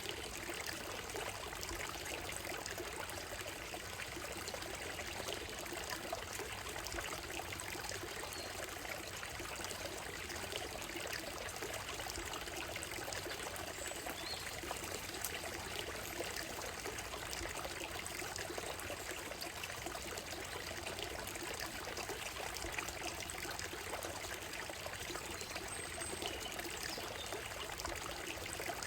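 Shallow stream running over a stony gravel bed, a steady, even trickling and splashing of water.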